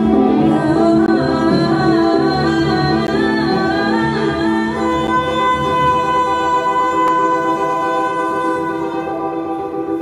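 A woman sings an ornamented, improvised vocal line into a microphone over an electronic keyboard. About halfway through the melody settles into long held notes.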